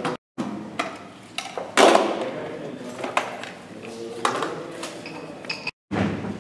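Knocks and clicks of shooting gear being handled, including a rifle case being opened, in a hard-walled room. One loud sharp knock comes about two seconds in, and the sound drops out briefly twice.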